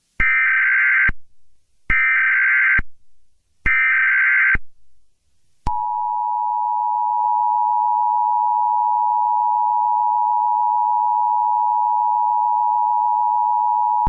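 Emergency Alert System SAME header: three short bursts of screeching digital data tones, followed by the steady two-tone EAS attention signal (853 and 960 Hz) starting about six seconds in. It opens an Emergency Action Termination alert, the all-clear.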